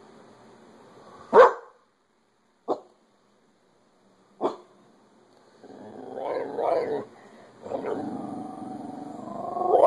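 An agitated dog barking three times in single sharp barks, the first the loudest, then growling continuously with rising, whining stretches over the second half. The dog is reacting to a television it treats as a threat.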